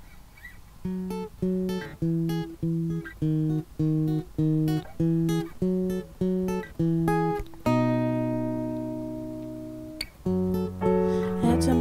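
Acoustic guitar playing a song's intro: picked notes about twice a second, then a chord left to ring for about two seconds, then the picking starts again.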